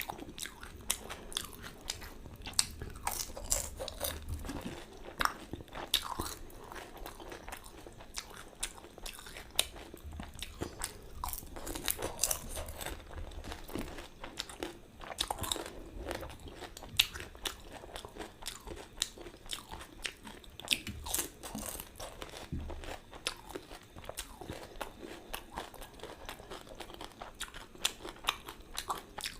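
A person chewing mouthfuls of pani puri: the crisp, hollow fried puris crunch between the teeth in many short, irregular crackles.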